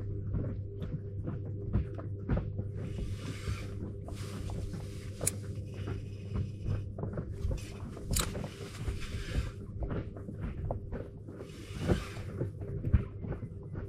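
Fishing tackle being handled in a boat during a retrieve with a spinning rod: a run of small irregular clicks and several longer rustling stretches, over a steady low hum.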